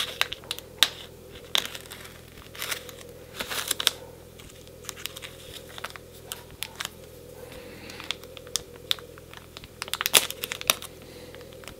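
Plastic mushroom grow bag crinkling and crackling in irregular bursts as hands press and smooth it, busiest near the end, over a faint steady hum.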